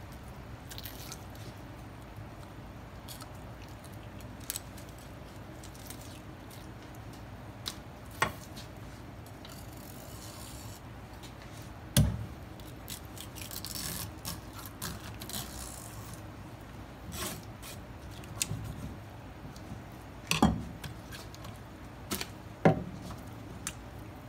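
A knife working through a conger eel on a wooden board: short scraping rasps and scattered small taps, with three sharp knocks against the board, the first about halfway in and two near the end.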